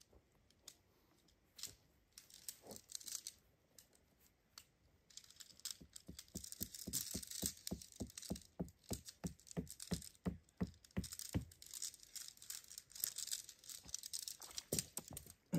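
Camping gear being handled: scattered clicks and rustling, then, from about halfway, a steadier rustle with a run of quick, even clicks, about four a second, lasting several seconds.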